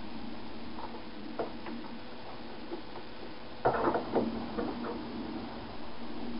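Scattered light clicks and knocks from the plastic vacuum cleaner being handled and worked on, with a short cluster of knocks about three and a half seconds in.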